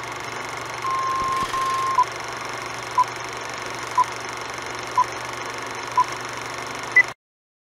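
Film projector running with a steady mechanical whir. Over it, countdown-leader beeps: a longer tone about a second in, then a short beep every second, and a final higher beep near the end, after which the sound cuts off suddenly.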